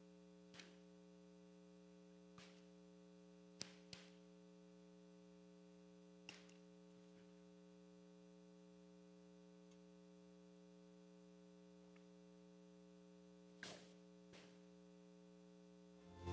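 Near silence with a steady mains hum from the sound system, broken by a handful of faint clicks and light knocks, the two sharpest about three and a half and four seconds in. Music starts right at the end.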